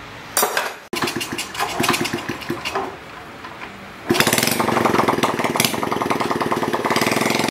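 A brief metal clank, then a Honda Chaly's small single-cylinder four-stroke engine is turned over and catches about four seconds in, running with a fast, even beat.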